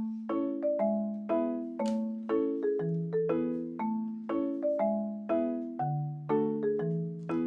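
Light background music: a melody of struck, quickly fading notes over chords, about two notes a second.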